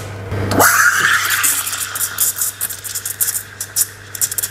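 Espresso machine steam wand frothing milk in a stainless steel pitcher. About half a second in comes a squeal rising in pitch, then a steady high whistle with rapid hissing ticks as air is drawn into the milk, over the machine's low steady hum.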